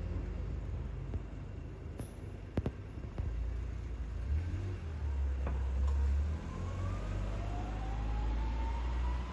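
Low rumble of traffic, with a faint engine tone rising slowly over the last few seconds like a vehicle accelerating. A couple of sharp clicks about two and a half seconds in.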